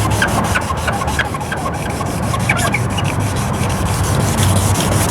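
Sandpaper being rubbed by hand over a yellowed, oxidized plastic headlight lens in fast, even back-and-forth strokes, the 1500-grit paper scuffing off the oxidation.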